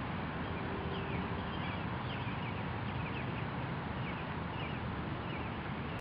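Steady rushing outdoor background noise with faint, scattered chirps of small birds through it.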